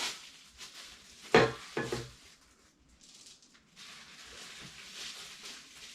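Bed frame parts knocking together as they are handled and fitted during assembly: two sharp clunks about half a second apart, then faint handling noise.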